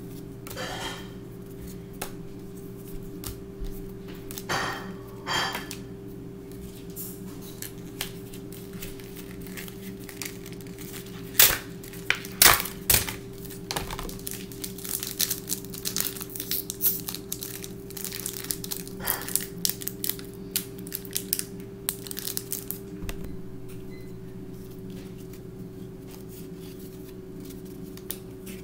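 Foil Pokémon booster pack crinkling and tearing open, with cards and packaging being handled in a run of crackles and sharp snaps that is loudest about halfway through. A steady low hum runs underneath.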